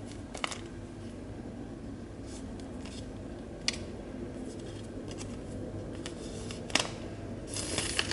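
Hands handling a smartphone still wrapped in its plastic protective film: sharp clicks and taps about half a second, three and a half and nearly seven seconds in, and a short crinkling rustle near the end, over a low steady hum.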